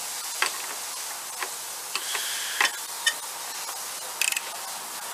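Metal tool clinks and single clicks as a socket and ratchet are handled, then a quick run of ratchet clicks about four seconds in as a hand ratchet wrench turns the steering-wheel nut.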